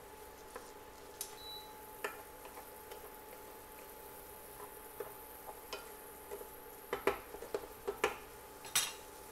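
Wooden spoon stirring diced tomatoes and onion in a nonstick frying pan: scattered light knocks and scrapes against the pan, coming thicker and louder in the last couple of seconds.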